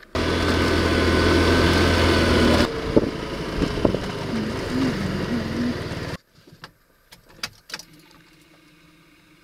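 Motorcycle engine running steadily under way, loud with a rushing hiss, easing off a little about three seconds in. About six seconds in it cuts off abruptly to a quiet car cabin with a few sharp clicks.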